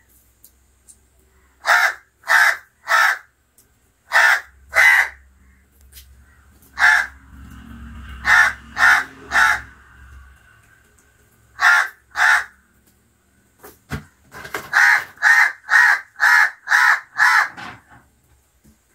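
House crows cawing: short, harsh caws in groups of two or three, then a quicker run of about eight caws near the end.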